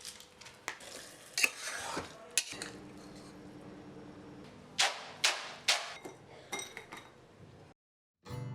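Metal kitchen utensils clinking and knocking against pots and dishes: a string of sharp clinks, some with a short metallic ring, that stops abruptly about a second before the end.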